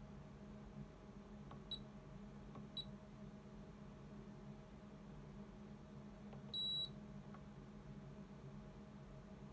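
Keysight U1733C handheld LCR meter beeping as its front-panel buttons are pressed: two short high beeps about a second apart, then a longer, louder beep a few seconds later, with faint button clicks.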